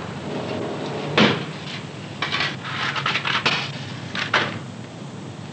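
Kitchen clatter at a sink: a sharp knock about a second in, then a quick run of clinks and knocks, and one more near the end, over a steady low hum from the old film soundtrack.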